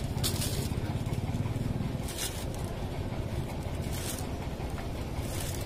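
Steady low background rumble, with a few short crinkling rustles as a bag is handled.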